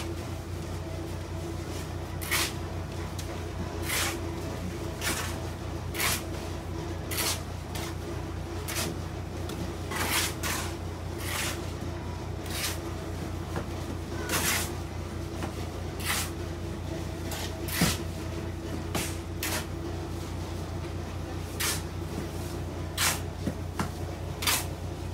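Irregular sharp knocks or taps, roughly one a second and unevenly spaced, over a steady low hum.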